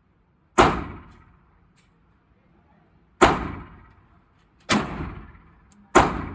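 Four single gunshots fired at an uneven pace, each a sharp crack trailing off over about half a second.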